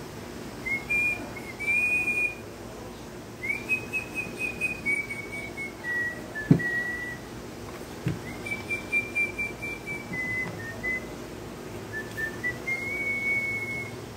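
A person whistling a tune in short phrases that step up and down in pitch. A sharp knock about six and a half seconds in, and a lighter one shortly after.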